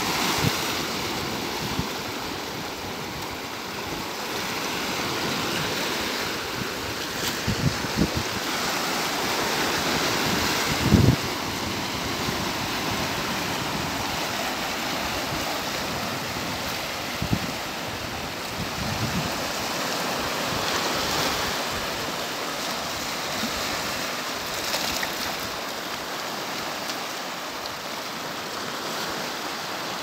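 Small sea waves washing in and breaking over a flat rock shelf, a steady rush of surf that swells and eases every few seconds. A few brief low thumps stand out, the loudest about eleven seconds in.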